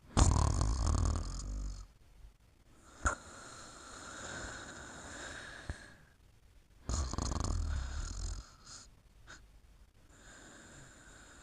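Snoring in sleep: two loud, low snores on the in-breath, about seven seconds apart, each followed by a softer, whistling out-breath. There is a brief click about three seconds in.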